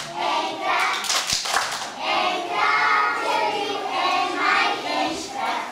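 A group of young children singing together while clapping their hands.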